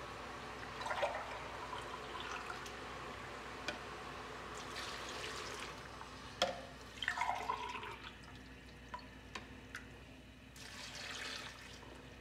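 Water poured from a glass into an aluminium pressure cooker of mutton, onions and tomatoes, in several separate pours, with a few light clicks between them. This is the water added for stewing the mutton tender.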